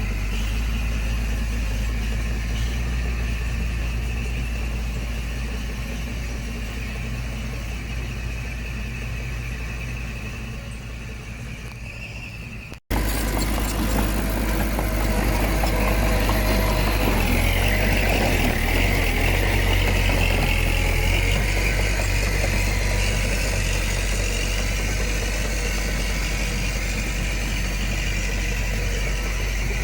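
Diesel engine of heavy earthmoving machinery running steadily. The sound cuts off abruptly about thirteen seconds in and comes back louder, with more clatter and working noise.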